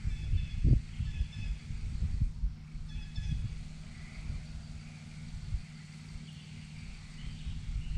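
Birds chirping in short repeated calls over a steady low rumble with irregular low thumps.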